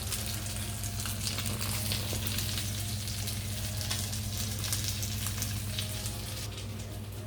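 Continuous frying sizzle, a dense crackle of fine pops from food cooking in hot oil in a pan, over a steady low hum.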